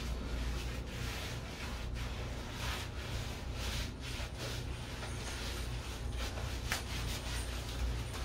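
Exfoliating gloves scrubbing soap-lathered skin: repeated rubbing strokes, roughly one to two a second, over a low steady hum.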